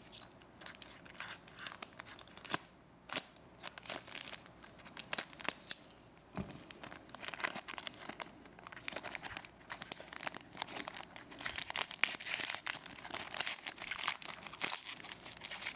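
Wrapper of a trading-card pack being torn open and crinkled by hand, an irregular run of crackles and small rips that grows busier about halfway through.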